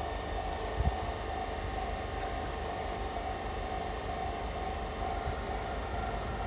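Railway level-crossing warning bell ringing steadily in an even repeating pattern over a low rumble.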